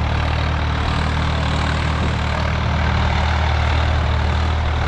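Swaraj 855 FE tractor's three-cylinder diesel engine running steadily at an even speed, with a deep unchanging hum.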